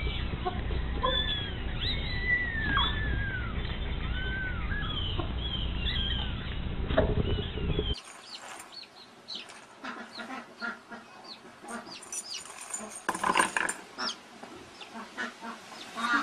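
Repeated short, high arching chirps from young animals over a low rumble for about eight seconds. After a sudden cut, a baby chick's thin peeping with scattered light knocks and scuffling.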